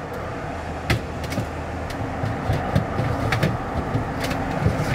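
Scattered plastic clicks and knocks as a NutriBullet cup is seated and twisted onto its motor base, over a steady low hum.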